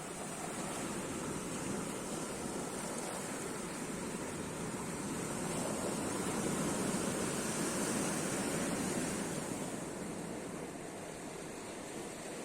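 Sea waves washing on the shore, a steady rush that swells to its loudest around the middle and then eases off.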